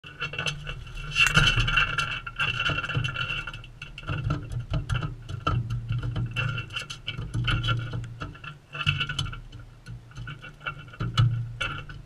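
Galahs feeding close to the microphone: a rapid, irregular clicking and tapping of beaks picking at seed, with stretches of raspy chatter about a second in and again about nine seconds in.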